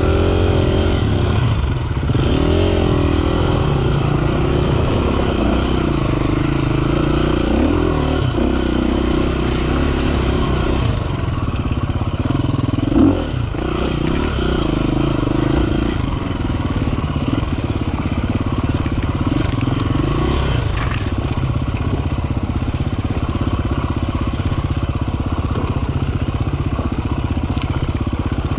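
Dirt bike engine running with the throttle opening and closing, its pitch rising and falling, with a brief sharp knock about thirteen seconds in.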